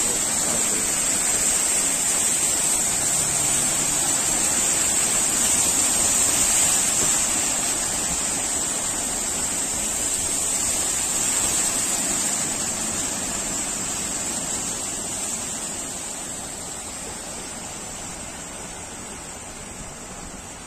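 Cars and a van driving through deep floodwater on a road, their tyres pushing and splashing the water into a steady rushing noise that fades over the last several seconds.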